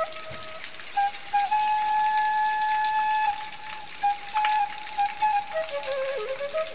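Slow flute melody of long held notes, with small slides between some of them, over the steady hiss of heavy rain.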